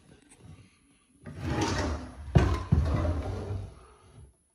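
Wooden bathroom-vanity drawer sliding on its runners, with a sharp knock a little past halfway as it hits its stop, then sliding again.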